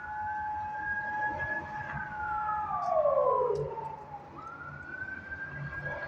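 Siren wailing in two tones. The lower tone holds steady, then winds down about halfway through, while the higher tone falls and then climbs again near the end.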